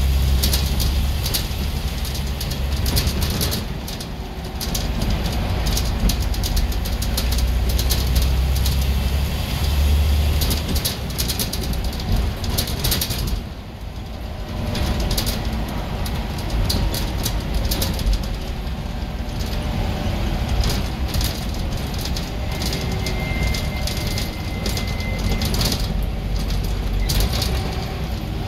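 Scania N94UB single-deck bus's rear-mounted diesel engine working hard under load, heard from inside the saloon, with a deep rumble and interior panels rattling. The engine eases off briefly about halfway through, then pulls again.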